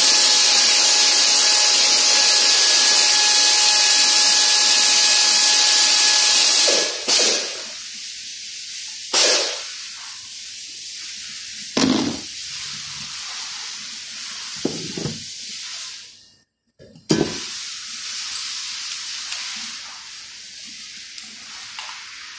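Pneumatic hand tool running with a loud hiss of air and a faint whine for about seven seconds while undoing bolts on the engine, then stopping. A few sharp metal knocks follow as tools and parts are handled.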